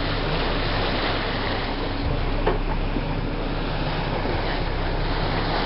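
Steady rush of wind and sea water, with a low, even engine hum underneath, heard from a boat on open water.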